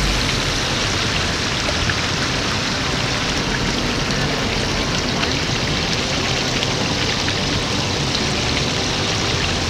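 Steady pattering rush of water, with small scattered ticks and no motor tone.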